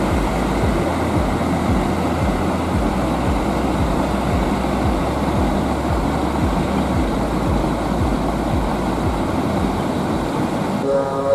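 Large diesel bus engine running close by: a steady low drone with a regular low pulse and a dense mechanical noise over it.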